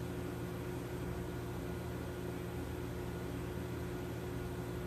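Steady mechanical hum of kitchen machinery: a constant low drone with one fixed tone over it, unchanging throughout.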